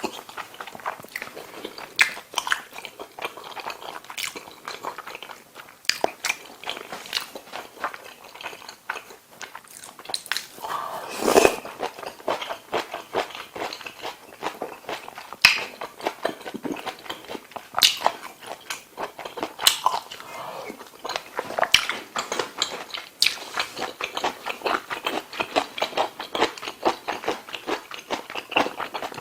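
Close-miked eating sounds: wet chewing and biting of kimchi stew and curry rice, with many short sharp clicks throughout and one longer, louder noisy stretch about eleven seconds in.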